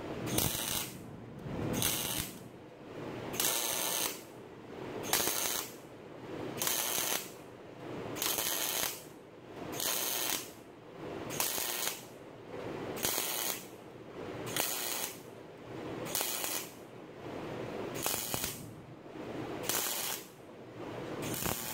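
MIG welder stitch-welding sheet steel: a run of short bursts of arc, roughly one every 0.8 seconds, each laying one tack of a stitch weld along a seam.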